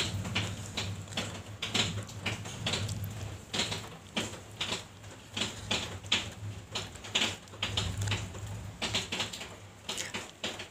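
Irregular light clicks, taps and small splashes as a hand dips into water-filled plastic fish cups and scoops out a betta, with a steady low hum underneath.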